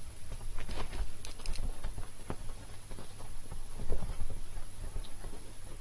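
Bengal kittens scampering and pouncing on a bedspread: irregular soft thumps and pattering of paws, with scratchy rustles on the fabric about a second in.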